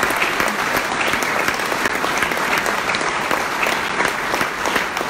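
Large audience applauding steadily, a dense crackle of many hands clapping.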